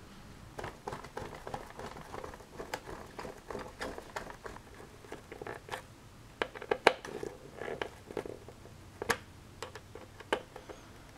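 Irregular small clicks and scratches of a plastic RC-plane control horn being handled and fitted to a foam aileron, then its small screws driven in with a hand screwdriver; a few sharper ticks stand out in the second half.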